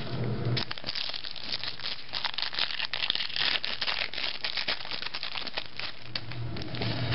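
Foil trading-card pack wrapper being crinkled and torn open by hand, a dense run of crackling.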